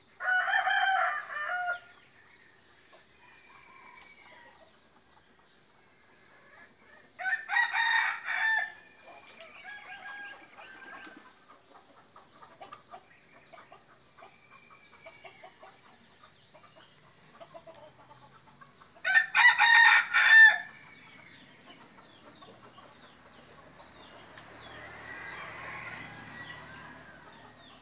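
Rooster crowing three times, each crow about a second and a half long, with long pauses between them.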